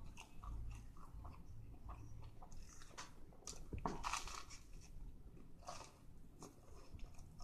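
A person chewing a tuna sandwich close to the microphone, with small wet mouth clicks. A fresh bite comes about four seconds in and is the loudest sound.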